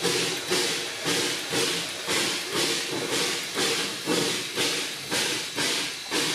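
Alaska Railroad No. 152 steam locomotive moving slowly, its exhaust chuffing evenly about twice a second, each chuff a sharp hiss of steam that fades before the next.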